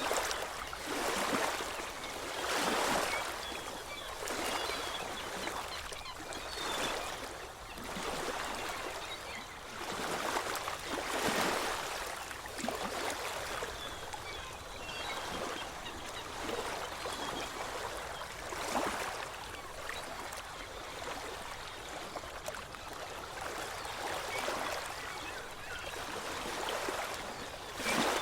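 Sea waves washing onto a shore, a continuous rush of water that swells and falls back every few seconds.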